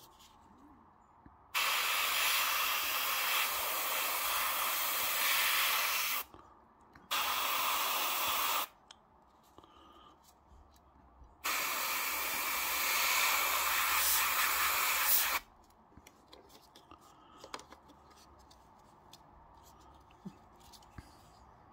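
Fengda starter airbrush spraying paint in three hissing bursts: a long one starting about one and a half seconds in, a short one, and another long one, each stopping abruptly. A few faint clicks follow near the end.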